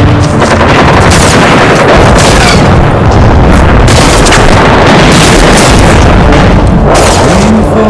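Edited-in explosion sound effects: a loud, continuous run of booms and blasts.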